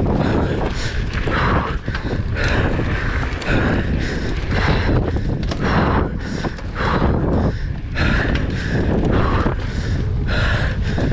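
A mountain biker breathing hard while riding, about one breath a second, over steady wind buffeting the action camera's microphone and the rumble of tyres on the trail.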